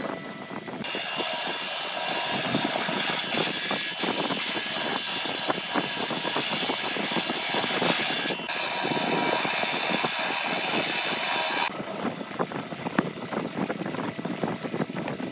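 A machine runs steadily with a high whine, then stops about twelve seconds in, leaving light handling clicks.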